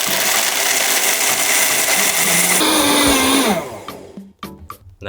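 Vitamix blender running at high speed, grinding whole almonds into almond flour. About three seconds in it is switched off, and the motor winds down with a falling whine.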